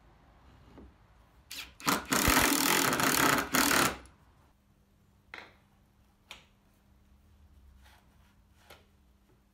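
Cordless drill driving a wood screw up through the sled base into the timber fence: two short blips on the trigger, then about two seconds of continuous running as the screw drives home. A few light knocks follow.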